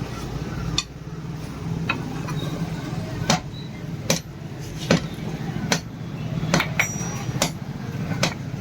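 Hand hammer striking hot leaf-spring steel on an anvil, about nine regular blows, roughly one every 0.8 s, over a steady low hum.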